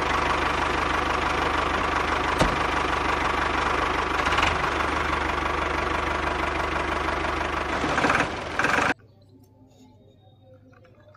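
Tractor engine sound running at a steady, knocking idle for about nine seconds, then cutting off abruptly. After the cut come a few faint clicks of a plastic toy trolley being hitched.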